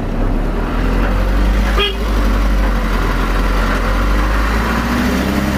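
Motor vehicle engine running with a steady low rumble, and a brief pitched toot about two seconds in.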